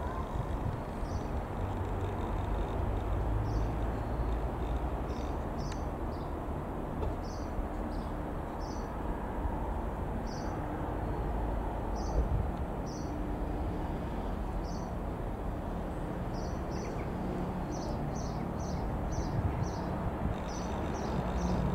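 Single-piston-engine Robin R3000 light aircraft flying overhead: a steady, even drone with no change in pitch. Small birds chirp in short notes throughout, most thickly near the end.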